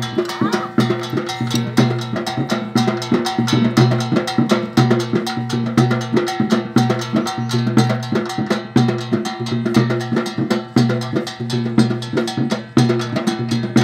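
Drum music with a fast, steady beat of sharp strokes over a held droning note, in the manner of the folk drumming that accompanies a dancing horse.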